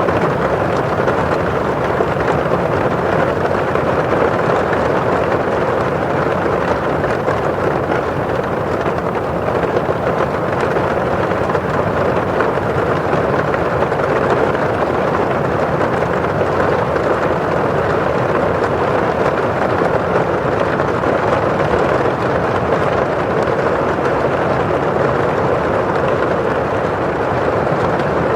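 Steady rain falling on a windowpane, with the rush of rain outside: a constant, even hiss with no pauses or single loud drops.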